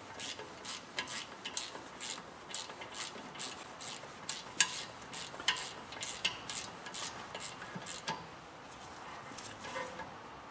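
Rapid, irregular metallic clicks and clinks of an adjustable wrench working a brake caliper bolt tight while an open-end wrench holds the guide pin; the clicking thins out after about eight seconds.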